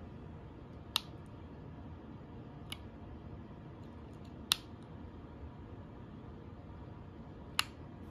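Tactile push button on a breadboard being pressed: single sharp clicks about a second in, near the middle and near the end, with a fainter click between the first two, over a steady low room noise.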